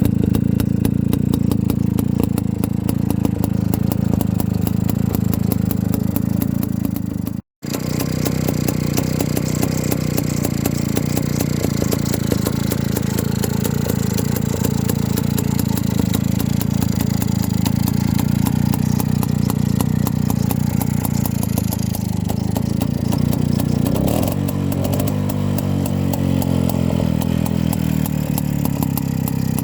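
A 1949 ČZ 125 T motorcycle's single-cylinder two-stroke engine running steadily at low revs. There is a brief dropout about seven and a half seconds in. The engine pitch shifts up and down briefly near the end.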